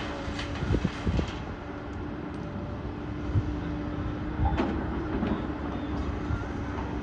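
Komatsu hydraulic excavator's diesel engine running steadily under working load with a constant hum, with a few knocks and scrapes from the bucket and rock, around a second in and again midway.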